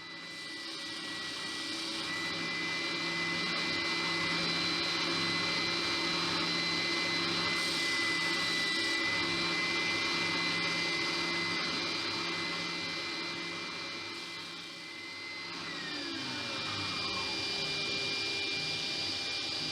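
An electric motor running steadily with a hiss and a high whine; the whine glides down in pitch past the middle of the stretch, then the motor noise carries on.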